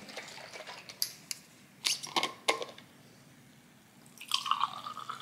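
A few light clicks and knocks from a glass juice bottle being handled, then juice pouring from the bottle into a glass about four seconds in. The pouring tone rises slightly as the glass fills.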